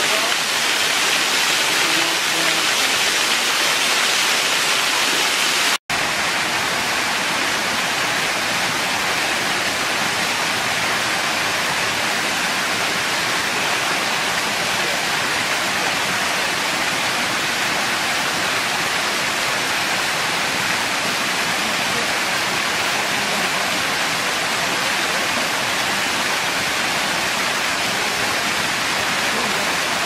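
Small waterfall pouring over rock ledges into a shallow pool: a steady rush of falling water. The sound cuts out for an instant about six seconds in and picks up again as a second cascade.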